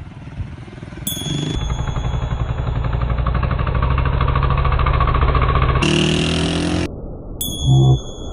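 A short chime rings, then a loud, steady, fast-pulsing mechanical rattle like an engine or jackhammer runs for about four seconds, and a second chime rings near the end.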